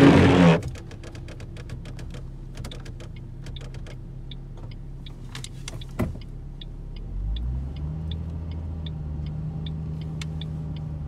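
Car engine running, heard from inside the cabin, with a loud brief noise at the very start and faint regular ticking, about two or three a second. About seven seconds in the engine note rises and grows louder as the car speeds up.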